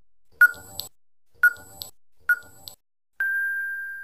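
Quiz countdown-timer sound effect: three short ticking beeps about a second apart, then a single long steady beep as time runs out.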